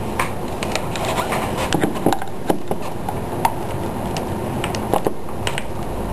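Irregular plastic clicks and knocks as the stuck battery latch and battery of a Macintosh PowerBook 170 are pried and worked at by hand.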